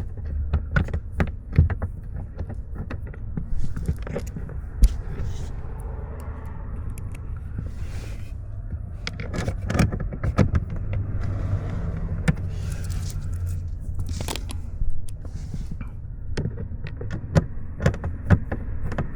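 Irregular clicks and taps of a Torx driver working a T20 bolt back into a car's interior trim panel, over a steady low hum.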